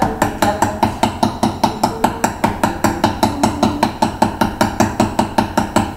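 A fork pricking a round of puff pastry: quick, even taps of the tines through the dough onto the worktop, about six or seven a second.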